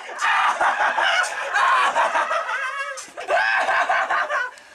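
A witch's shrill, wordless cackling laugh with shrieks, dropping off near the end.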